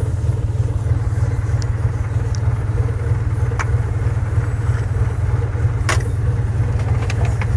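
Daihatsu Hijet 1000 engine idling steadily after two months standing, with a couple of sharp clicks about three and a half and six seconds in.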